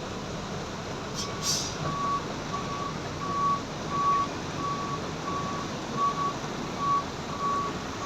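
Heavy rain falling steadily. From about a second in, a vehicle's reversing beeper sounds a single steady tone about one and a half times a second, and there is a short hiss early on.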